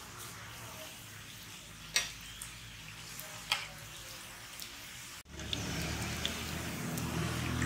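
Donuts deep-frying in hot oil in an iron kadai, a steady sizzle, with two sharp taps of a metal slotted spoon against the pan about two and three and a half seconds in. After about five seconds the sound cuts to a louder sizzle with a low rumble underneath.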